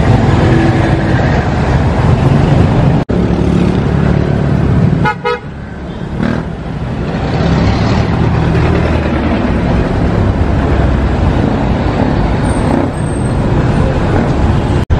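Steady street traffic rumbling, with a brief vehicle horn toot about five seconds in.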